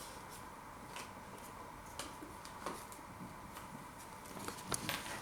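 Faint eating noises: a few light clicks and small scrapes, a little busier near the end, over a faint steady hum.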